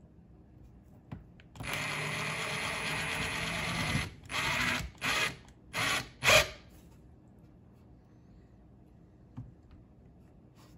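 Ridgid cordless drill driving a screw through the mount's slotted hole into the boat's console. It runs steadily for about two and a half seconds, then gives four short bursts to snug the screw down, the last one the loudest.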